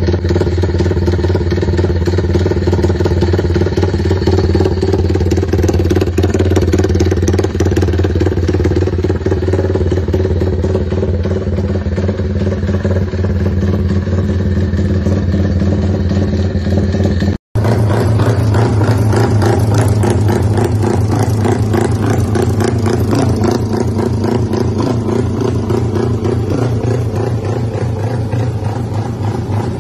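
An engine running steadily. It cuts out for an instant about two thirds of the way through, then runs on at a slightly higher pitch.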